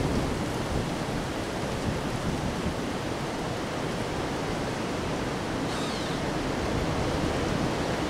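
Windstorm wind blowing through bare treetops, a steady rushing noise.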